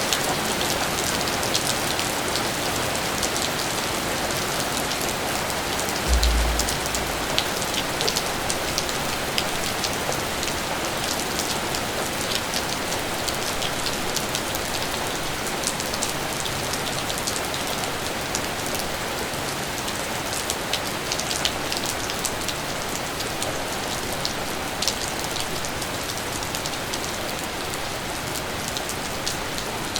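Steady rain: an even hiss with many individual drops ticking close by. A brief low thump about six seconds in.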